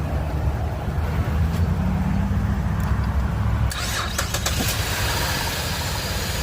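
A 2011 Chevrolet Impala engine starting on a jump start after a dirty battery connection was cleaned: a low engine rumble, a few sharp clicks about four seconds in, then a steady running sound as it settles to idle.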